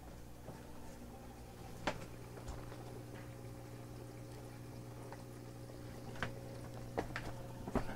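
Water splashing and trickling into a water-turtle tub from a hose or filter return, over a steady hum. A few sharp clicks come through.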